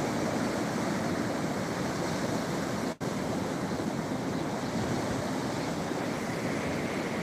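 Sea waves washing on the shore, a steady rush with wind buffeting the microphone. The sound drops out for an instant about three seconds in.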